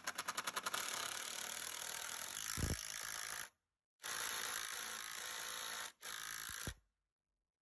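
Cordless DeWalt impact driver hammering an 8 mm masonry bolt through a timber upright into a concrete post. It runs in three bursts: a long one of about three and a half seconds, one of about two seconds, and a short final one. A dull knock comes near the end of the first and the last burst.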